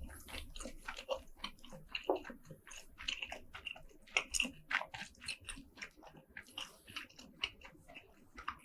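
Close-miked chewing of squid: wet mouth smacks and soft, irregular crunching bites, several a second.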